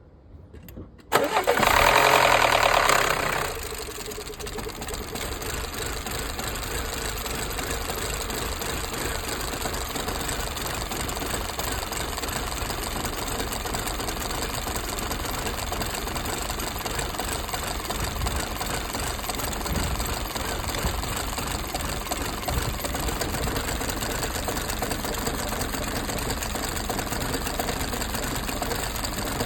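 Audi A5's 1.8 TFSI four-cylinder petrol engine cranking and catching about a second in, flaring up for a couple of seconds, then settling into a steady idle. The owner reports the engine misfiring with fault code P0016, a crankshaft–camshaft position correlation fault.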